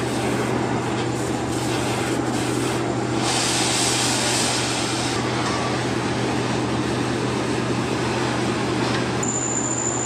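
TIG welding arc buzzing steadily with a low hum as a crack in an aluminium alloy wheel is welded, turning hissier for a couple of seconds about three seconds in.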